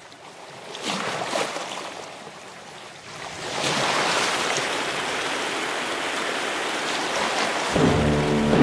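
Sea waves surging and washing: a hissing surf noise that swells about a second in, eases, then builds again and holds from about three and a half seconds. Near the end, choral music begins over it.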